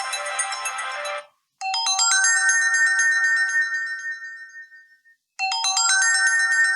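Honor 7A preset ringtones. One ringtone cuts off about a second in. The next, a short melodic phrase of ringing notes, plays and fades out, then starts again near the end as it loops.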